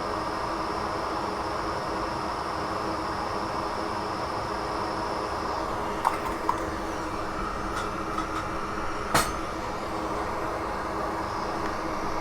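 Steady electric whir and hum of soldering-bench equipment, with a high whine that drops out about halfway and returns near the end. A few small sharp clicks of tools on the work come in the second half, the loudest a little after nine seconds.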